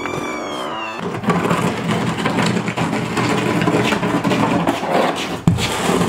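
Door hinge squeaking as the door swings open, one drawn-out squeak that falls slightly in pitch and stops about a second in. Then a loud, steady rushing and rumbling noise, with a sharp knock near the end.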